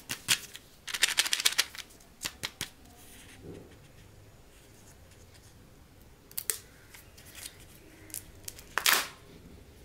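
Foil wrapper of a Kinder Joy egg crinkling as it is handled. A quick run of crackles comes about a second in, then a few scattered ones. A louder crackle near the end comes as the wrapper seam is pulled open.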